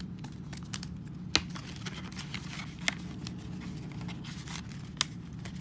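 Paper banknotes rustling and crinkling as they are flipped and slid into a paper cash envelope, with three louder crisp snaps of the paper. A steady low hum runs underneath.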